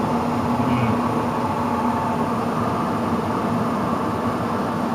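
Furnace blower running with a steady hum and rushing air, sounding bad: a failing blower motor, called "a very bad blower".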